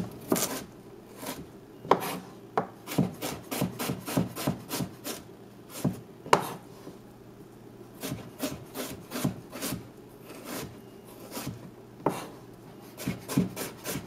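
Chef's knife cutting carrot slices into julienne strips on a plastic cutting board: sharp knife strikes in quick runs of a few a second, with short pauses between runs.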